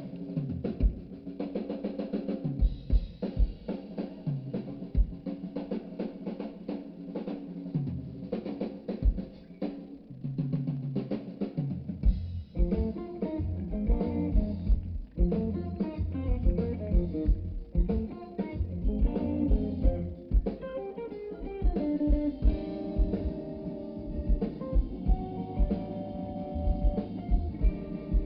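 Live blues band playing an instrumental passage. Drum kit and bass carry the groove, and the full band comes in with guitar lines about twelve seconds in.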